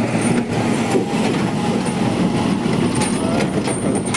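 Tata truck's diesel engine running as the truck drives past close by on a rough dirt road, with tyre and body noise; a few clicks and knocks near the end.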